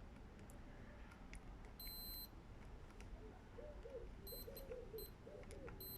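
Multimeter continuity tester beeping as its probes touch a circuit-board trace: one half-second high beep about two seconds in, then several short broken beeps near the end, with light clicks of the probe tips. The beep means the probes are on connected points, so the trace is continuous.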